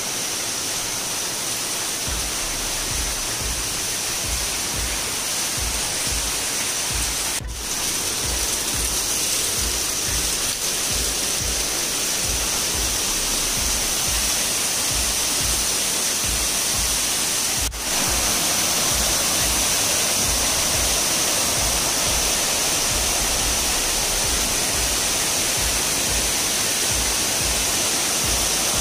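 Waterfall splashing down rock steps, a steady rush of water with two brief breaks in the sound, about seven and eighteen seconds in. Background music plays under it.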